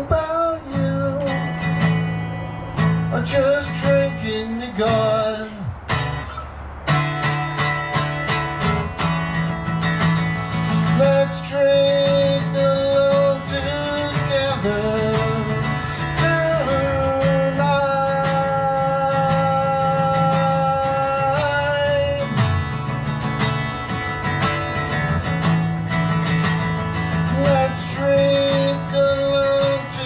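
A guitar played as song accompaniment, steady strummed and picked chords over a low bass line, with a held melodic note ringing out for a few seconds in the middle.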